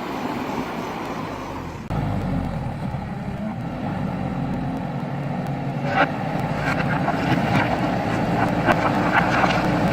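JCB backhoe loader's diesel engine running, rising sharply in level about two seconds in. From about six seconds on there are repeated sharp knocks and clatter, typical of the bucket working gravel and stone.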